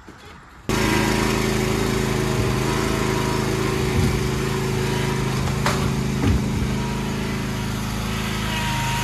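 John Deere Z375R zero-turn mower's engine running steadily, coming in suddenly about a second in. A couple of brief clicks sound midway.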